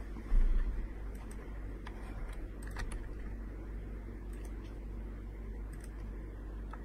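A dull low thump about half a second in, then a few scattered, irregular clicks of computer keys over a steady low hum.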